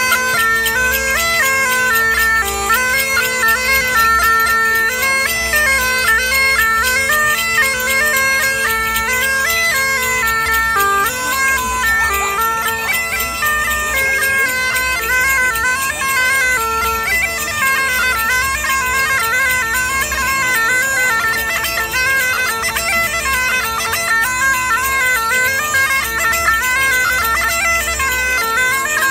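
Medieval-style bagpipe being played: a steady low drone under a chanter melody that moves quickly up and down, without a break.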